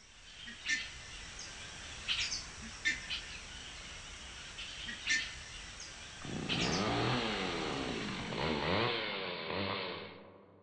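Outdoor ambience with scattered short bird chirps. About six seconds in, a louder warbling sound joins, its pitch sweeping up and down over and over, and it fades out near the end.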